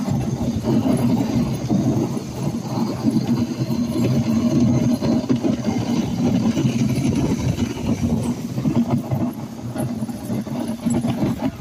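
Wooden dog sled gliding over snow behind a husky team: a steady low rumble and scrape from the runners, with many small knocks through it.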